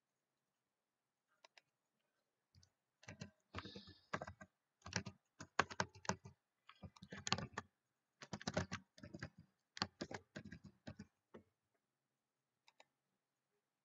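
Computer keyboard typing in a quick run of keystrokes lasting about eight seconds, with a few single clicks before it and one near the end.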